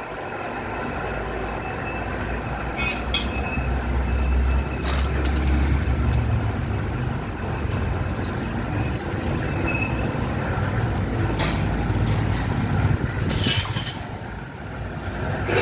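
Steel drum lid cutting machine running, a steady low motor hum with a few sharp metallic clicks scattered through it.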